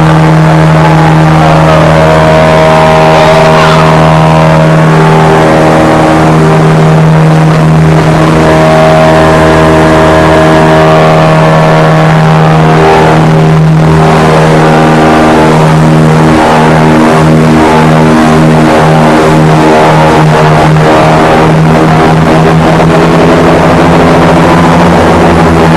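Airboat's engine and air propeller running loudly and steadily at speed, a continuous low drone whose pitch wavers slightly.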